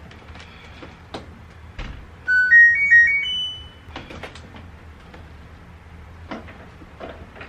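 Washing machine's electronic chime: a short rising run of beeper notes ending on a held higher tone, as the machine is switched on for a load. A few clicks and knocks of handling the machine come before and after it.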